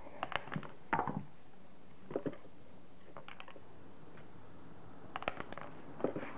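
Small flat screwdriver clicking and scraping against the metal collar of an Audi A8 D3 air strut, prying at the joint between the air spring bag and the shock. The clicks and light knocks come in about six short groups with quiet gaps between them.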